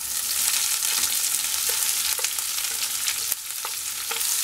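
Freshly added sliced onions and curry leaves sizzling in hot oil in a nonstick kadai, stirred with a wooden spatula that knocks lightly against the pan a few times.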